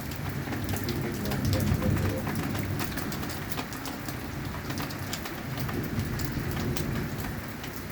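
Heavy rain falling, with many individual drops tapping on a hard surface, over a low rumble that swells and fades.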